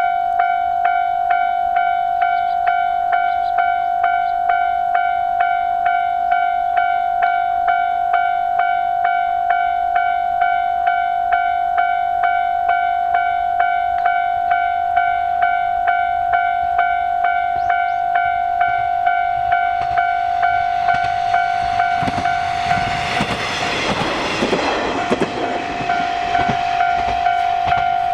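Japanese railroad crossing alarm ringing its repeated "kan-kan" at an even pace throughout. In the second half a train passes through the crossing, its rumble and rush building, peaking and easing off under the steady alarm.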